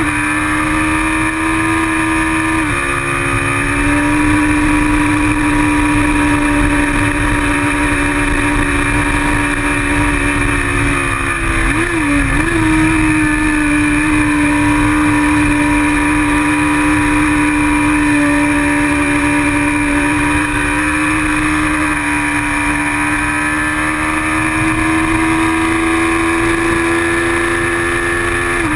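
Kawasaki Ninja 650R's parallel-twin engine running hard at racing speed, heard from the bike itself, with wind buffeting the microphone. The engine pitch steps down a little about three seconds in, wavers briefly near the middle, climbs slowly toward the end and drops sharply right at the end.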